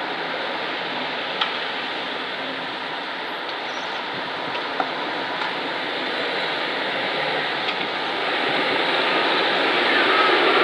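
Road traffic passing: a steady hiss of tyres and engines from cars and a van, growing louder near the end as a single-decker bus draws close.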